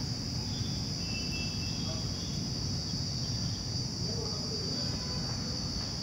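A steady, high-pitched insect chorus runs without a break over a low background rumble.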